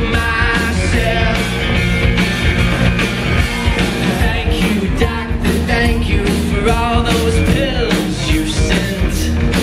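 A rock band playing live, with singing over electric guitar, keyboard and drums, heard from within the audience.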